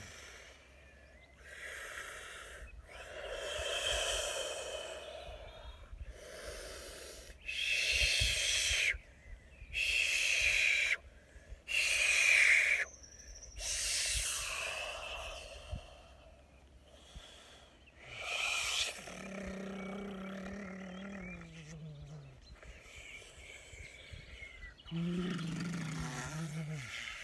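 A man's wordless light-language vocalising: a string of forceful, breathy blowing and hissing sounds, then two long low tones that slide down in pitch near the end.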